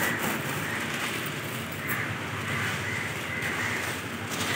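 Dried red chillies rustling and a plastic bag crinkling as the chillies are tipped out onto a cloth and spread by hand.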